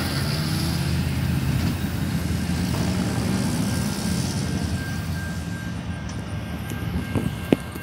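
Steady low rumble of a Norfolk Southern freight train rolling away from a grade crossing, mixed with cars and trucks driving over the crossing. The rumble eases off slightly in the second half, and a short sharp squeak stands out near the end.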